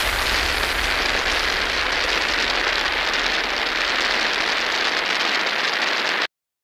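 Loud, steady, even hiss that starts abruptly and cuts off suddenly near the end, strongest in the upper-middle range.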